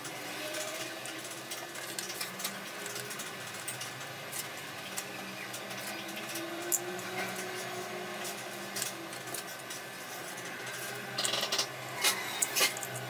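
Paracord being worked by hand: soft rustling and scattered small clicks as the nylon cord is pulled and tucked, with a cluster of louder clicks and scrapes about eleven seconds in, over a faint steady hum.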